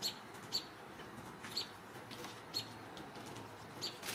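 A small bird chirping: five short, high, sharp chirps at uneven intervals of about half a second to a second.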